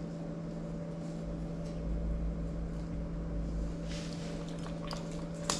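Electric hair clipper running with a steady hum as it shaves a dog's coat; a few faint clicks near the end.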